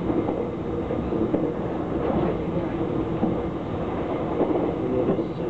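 Steady rumble and running noise of a moving train, heard from inside the passenger car.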